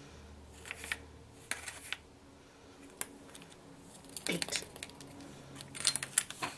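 Small plastic spoon tapping and scraping against a plastic jar and a zip-lock bag while mica powder is scooped out: scattered light clicks and crinkles, with a busier cluster about four seconds in and again near the end.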